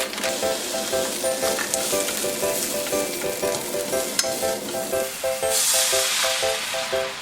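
Food sizzling in a hot frying pan, a steady crackling hiss that grows louder for a moment near the end and then cuts off abruptly. Light background music plays over it.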